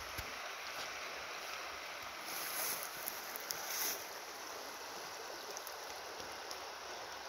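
River water running, a steady rushing hiss, with two short louder water sounds about two and a half and four seconds in.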